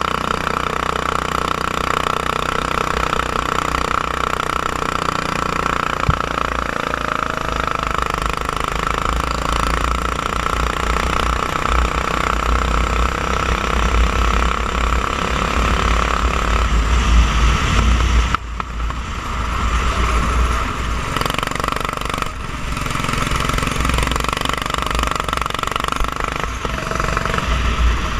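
Racing kart engine running hard at speed, heard onboard the kart, with a heavy low rumble underneath. About two-thirds of the way through the engine note drops off abruptly, then picks back up.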